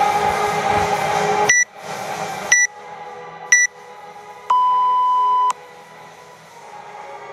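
Workout timer counting down: three short high beeps a second apart, then one long lower beep about a second long marking the start. Music playing at the start drops away sharply as the first beep sounds and goes on faintly underneath.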